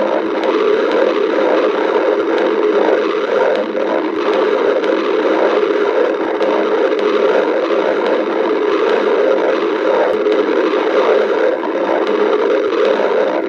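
A person's stomach growling from hunger in a continuous, unbroken rumble, recorded close up.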